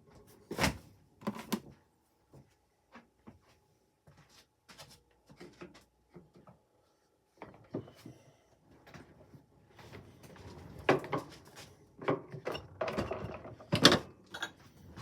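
Dishwasher being handled: scattered knocks, clicks and clatter of its rack and door being moved, with a pair of knocks about half a second in and busier clattering near the end, topped by one loud knock.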